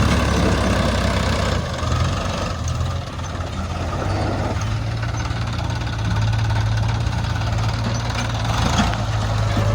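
Heavy diesel engine running at a steady pace, its note shifting a couple of times in the first half and then holding a steady hum.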